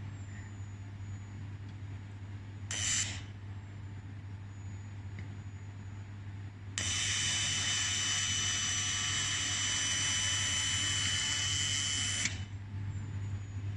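Handheld fiber laser welder firing on a seam for about five and a half seconds, starting about seven seconds in: a steady high-pitched buzz over a hiss, starting and stopping abruptly. A low steady hum from the welding machine runs underneath, and a short puff of noise comes about three seconds in.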